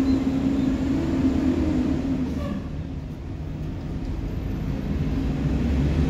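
Blue Bird CNG school bus running as it pulls away, a steady engine hum over a low rumble that fades about halfway through. A low rumble builds again near the end.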